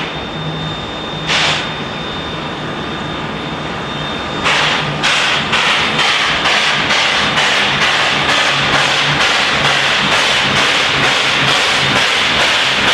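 Three-foot-gauge Baldwin 2-6-2 steam locomotive working toward the listener. Its exhaust beats come in about four seconds in and repeat evenly at two to three chuffs a second over a steady hiss.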